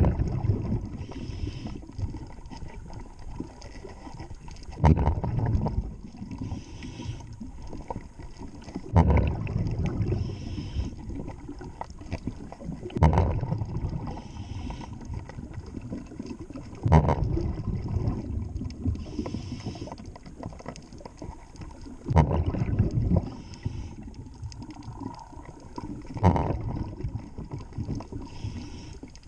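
Scuba diver breathing through a regulator, with a loud rush of exhaled bubbles about every four seconds over a low steady rumble.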